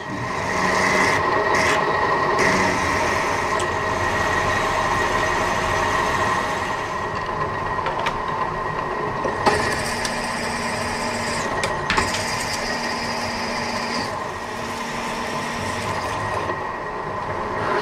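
Milling machine spindle running steadily while a twist drill bores into a metal part, drilling the tap hole for an M14 bolt. A few sharp clicks come near the middle.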